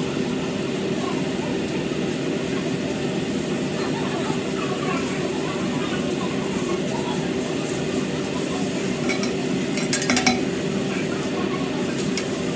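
Steak sizzling on a teppanyaki griddle as a chef's knife and spatula scrape and tap on the steel, over a steady hum. A quick cluster of sharp metal clinks comes about ten seconds in, and one more near the end.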